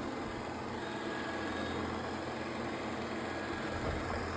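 Robot vacuum cleaner running: a steady motor whir with brush and suction noise.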